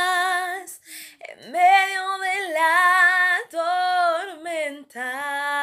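Woman singing a worship song unaccompanied, holding long notes with vibrato, with short pauses for breath.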